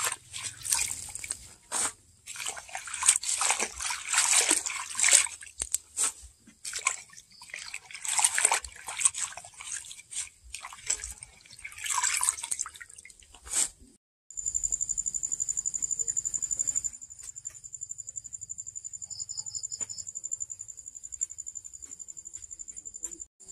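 A hand swishing and rubbing longan leaves in a metal basin of water, with irregular splashing and sloshing. About 14 seconds in, the splashing stops and a steady high-pitched whine carries on.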